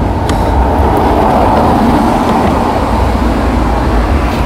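Road traffic going by: a steady rushing rumble with no distinct pitch that swells a little in the middle.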